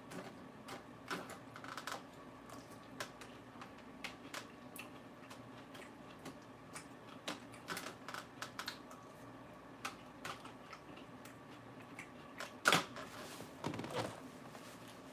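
Crisp, irregular crunching of raw lettuce being chewed close to the microphone. The crunches come in scattered clicks, with the loudest about three-quarters of the way in.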